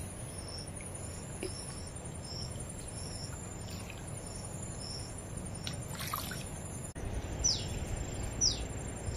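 Insect chirping in a regular rhythm, a little under two chirps a second, over a faint high drone and low outdoor noise; the chirping stops about five seconds in. Near the end, a bird gives three short falling calls.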